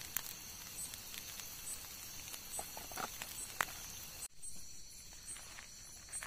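Scrambled eggs crackling and sizzling in a pan on a portable gas stove, over a steady chirping of crickets. About four seconds in the sizzling cuts off and only the crickets and a few light clicks remain.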